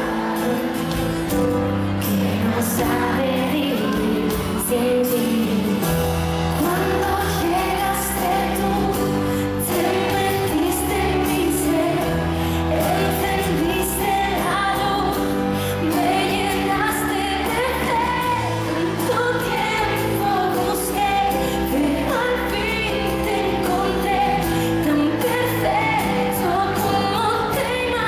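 Live pop song with female vocals sung in Spanish over strummed acoustic guitar.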